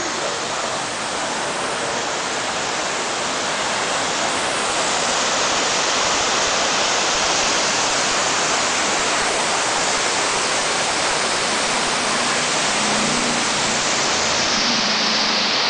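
Steady rushing of river water, a continuous even hiss that grows a little louder about five seconds in.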